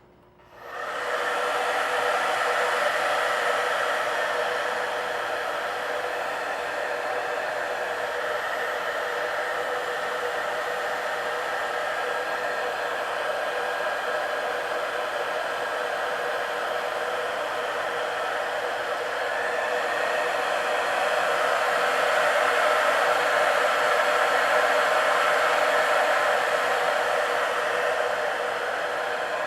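Paul Mitchell Pro Tools Express Ion Dry+ hair dryer switched on and blowing: its fan and motor start about half a second in and run steadily with a loud rushing whir, a little softer from about five seconds in and louder again from about twenty seconds in.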